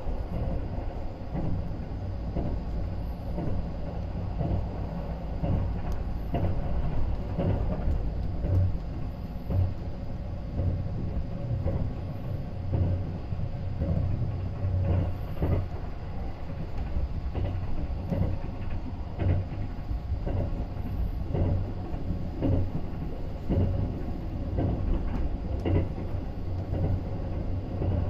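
Running noise of a 285-series electric sleeper train heard from inside a passenger compartment: a steady low rumble with scattered short clacks of the wheels on the rails.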